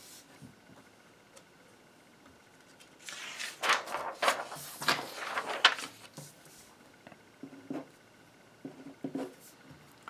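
Sheets of paper being handled and slid across a desktop: a loud rustling that starts about three seconds in and lasts about three seconds, followed by a few softer scattered sounds.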